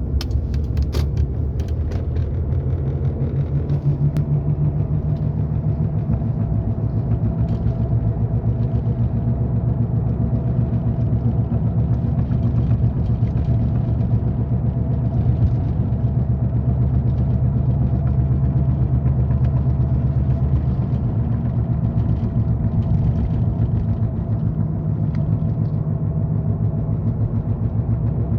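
Car in motion with a steady low drone and a higher hum from a bad wheel bearing, worn enough that it needs replacing as soon as possible. A few sharp clicks come in the first second.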